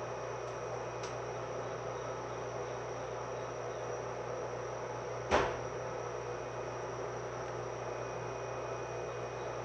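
Steady hum inside a 105-series electric train car standing at a station, from its onboard equipment with the traction motors idle. A single sharp knock about five seconds in, dying away quickly.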